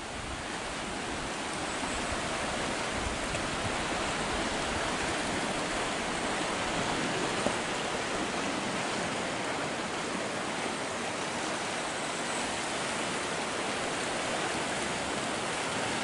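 Sea water washing and surging among rocks at the foot of sea cliffs, a steady even rush with no distinct wave breaks.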